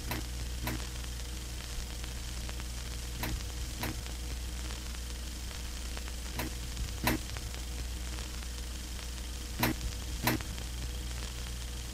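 Steady static hiss with a low hum, broken by sharp clicks that come in pairs about every three seconds.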